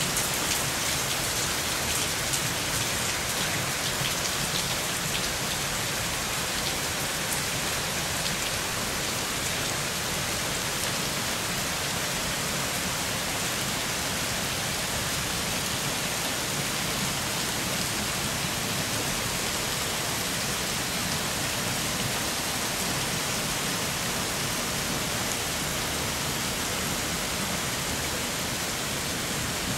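Steady rushing of water in a flash-flood storm: heavy rain and white water running down a street.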